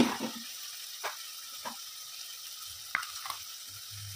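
Chopped onions and green capsicum sizzling steadily in hot refined oil in a kadhai. A steel ladle knocks and scrapes against the pan a few short times.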